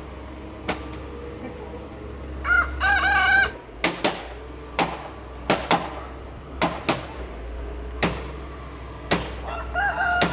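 Irregular hammer blows on the timber beams of a wooden house frame, about a dozen sharp knocks. A rooster crows once about a third of the way in, and another crow begins near the end.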